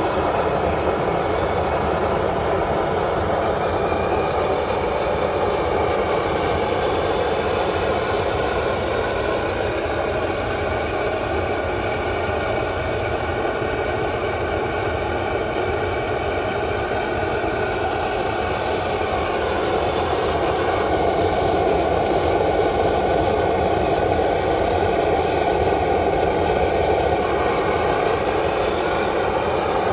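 Eastman Kahuna wok burner running at high flame, a steady loud gas roar, slightly louder from about twenty seconds in.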